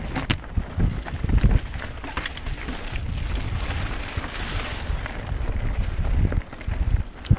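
Mountain bike descending a rocky trail at speed: wind rumbling on the microphone, tyres crunching over loose stones, and scattered sharp knocks and rattles as the bike hits rocks, with a stretch of louder tyre hiss around the middle.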